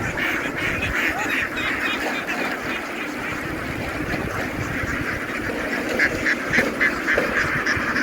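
A large flock of domestic ducks quacking together in a dense, continuous chorus, many overlapping calls blending into a buzz, with a few louder quacks standing out near the end.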